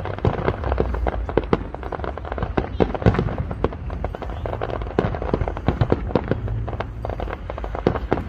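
Fireworks display: aerial shells bursting overhead, with many sharp bangs and crackles following each other quickly and irregularly.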